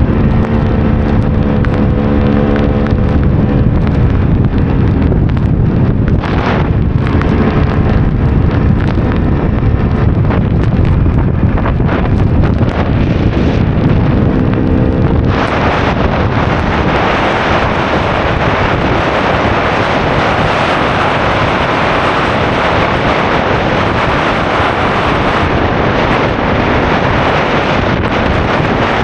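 KTM EXC 300's two-stroke single-cylinder engine running under a rider, its note wavering, until about halfway through a loud, even rushing of wind on the microphone suddenly takes over and drowns it.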